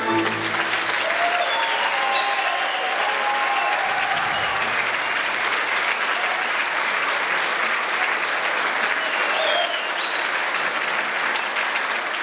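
Audience applauding steadily as the last note of the folk music dies away at the very start.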